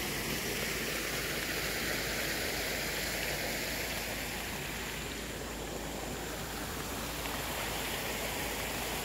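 Shallow water flowing steadily over a tarpaulin liner, a continuous running-water noise that eases slightly midway.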